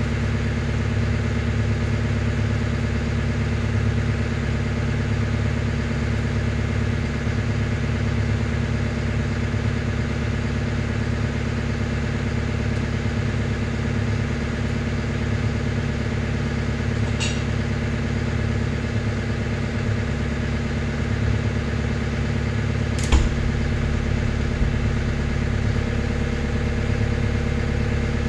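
An engine idling steadily, with a sharp click about two-thirds of the way through and a single knock a few seconds later.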